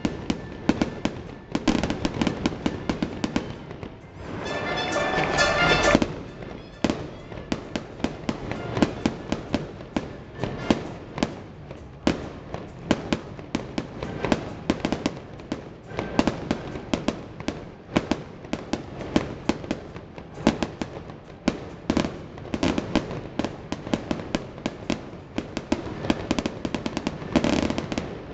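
Fireworks display: a dense, continuous run of bangs and crackles, several a second, with a louder swell a few seconds in.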